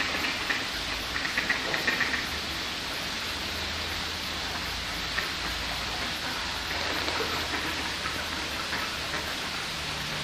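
Steady rushing of water spilling over a small concrete weir into a pool. About one to two seconds in, a quick run of short, sharp sounds rises above it.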